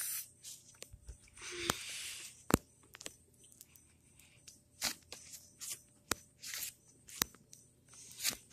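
Scattered knocks and clicks of someone climbing down a wooden treehouse ladder, with short rustling scrapes of handling noise; the sharpest click comes about two and a half seconds in.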